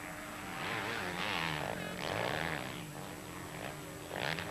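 Motocross bike engines revving up and down as riders race along the track, the pitch rising and falling with the throttle, with a louder rasping stretch about a second in and a short burst near the end.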